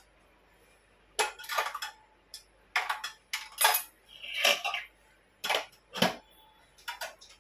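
Stainless steel kitchen utensils clattering as they are handled: a lid lifted off a steel pot and a stack of steel containers moved. There are about ten sharp clinks and knocks, one of which rings on briefly about halfway through.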